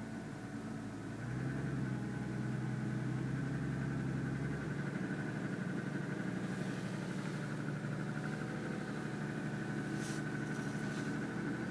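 2007 Lexus ES350's 3.5-litre V6 running as the car is driven cold, getting louder about a second in, with the pronounced knock of piston slap, a defect that shows for about ten minutes after a cold start. A short sharp click near the end.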